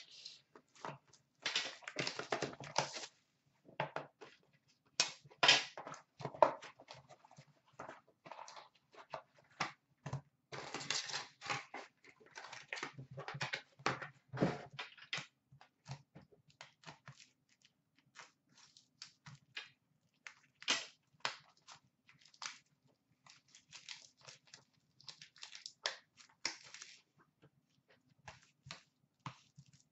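Plastic wrapping and card packaging crinkling and tearing in irregular bursts, with scattered clicks, as an Upper Deck Black hockey card box is unwrapped and its packs are opened.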